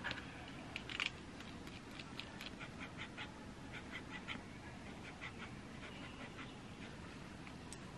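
Fountain pen nib scratching on paper as short strokes are written, quick light scratches at about two or three a second.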